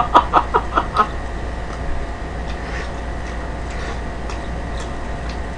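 A woman's laughter trails off over the first second in a quick run of falling 'ha' pulses. Then come scattered soft mouth clicks and smacks as she chews a chicken burger.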